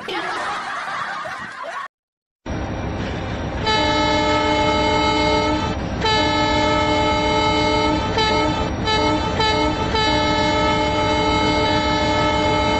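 Train rumbling, joined about four seconds in by a train horn sounding a long, steady multi-tone blast that breaks off briefly a few times. Before it, a couple of seconds of other noise end in a short silence.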